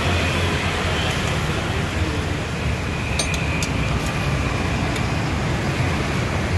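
Honda Vario 150 scooter's liquid-cooled single-cylinder engine, bored up with a 59 mm piston, idling steadily through a CLD Racing C3 round aftermarket exhaust.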